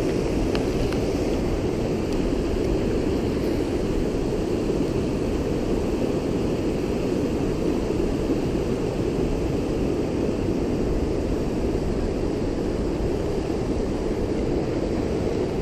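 Steady rush of fast, high creek water pouring over a low weir and through riffles, swollen after rain. A few faint ticks near the start.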